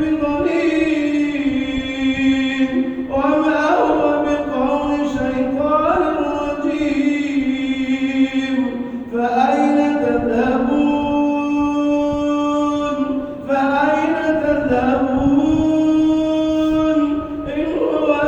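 A man reciting the Quran in the Warsh reading, in a melodic chanted style, drawing out long held notes with gliding pitch and pausing briefly for breath a few times.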